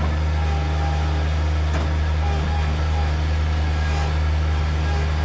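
Engine of a compact construction machine, fitted with a beak attachment for breaking up asphalt, running at a steady speed: an even, low drone with no revving.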